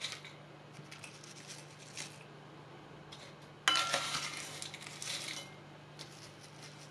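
A spoon digging into crisp fried shallots in a glass jar: dry crackling and rustling in short clusters, with a louder, sudden clinking clatter about three and a half seconds in.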